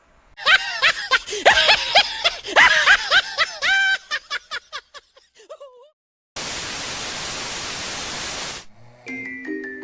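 High-pitched giggling: a quick run of rising and falling squeals that thins out and trails off around four to six seconds in. Then a burst of hissing static lasts about two seconds.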